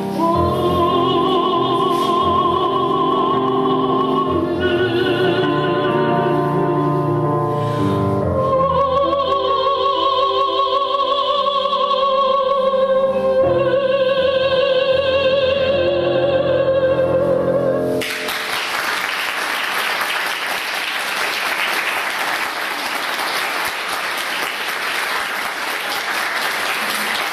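A woman sings an operatic sacred song in classical style with wide vibrato, accompanied on an electric keyboard, ending on a long held note. About two-thirds of the way through, the music stops and the audience applauds.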